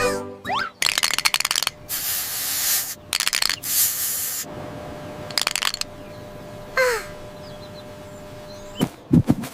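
A run of cartoon sound effects: a fast rattle, two hissing whooshes, short bursts of clicks, a brief falling squeak, then a few low thuds near the end.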